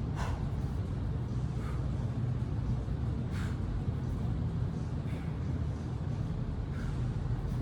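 Steady low hum, with faint soft hiss-like sounds about every second and a half to two seconds.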